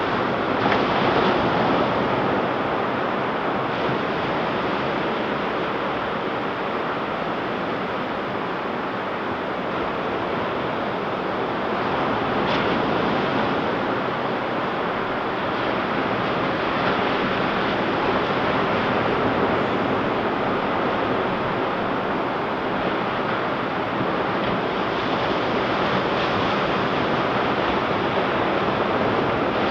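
Ocean surf washing onto a beach: a steady rushing noise that swells and eases slowly as waves break and run up the sand.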